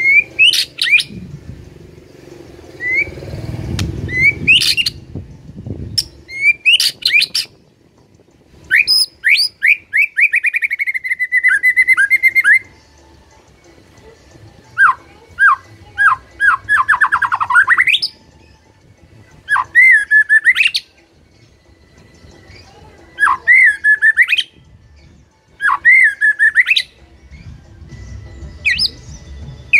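White-rumped shama (murai batu) singing in full, loud song: short phrases of clear whistles, sharp upsweeping notes and fast rattling trills, about ten phrases with short pauses between them, one a longer run of trills.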